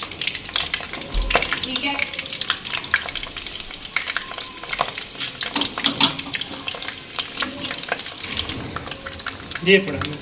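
Spring rolls deep-frying in hot oil, sizzling steadily with many sharp crackles and pops as more rolls are laid into the oil.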